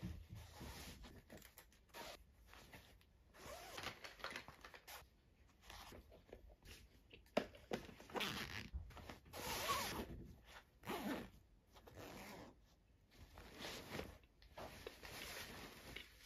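Faint zipping and rustling as a fabric backpack is packed and its zippers are pulled: a run of short scratchy zip strokes, busiest in the middle, with one sharp click.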